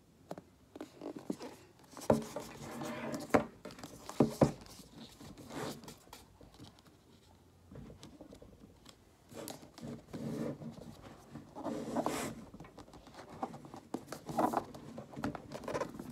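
Hands handling a cardboard Apple iPad Pro box: irregular scraping, rustling and sharp taps as it is turned and gripped, with a short pause about eight seconds in.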